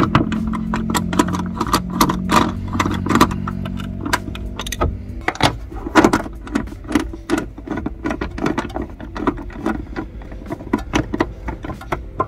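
Ratchet wrench on a socket extension clicking in quick runs as its handle is swung back and forth, tightening the coilover's top-mount bolts. A low steady hum fades out during the first few seconds.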